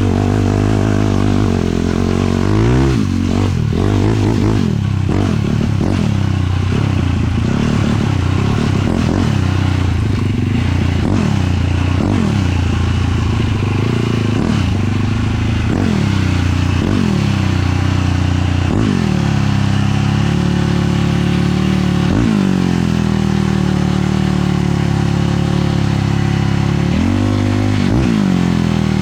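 Single-cylinder 450 sport quad engine running hard under load, its pitch rising and dropping again and again every second or two as the throttle and gears change.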